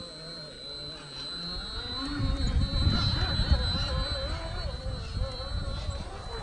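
Brushless motor of a scale RC rock crawler whining as it crawls over rock, its pitch wavering up and down with the throttle, over a steady high-pitched whine. A low rumble comes in about two seconds in and is loudest around three seconds.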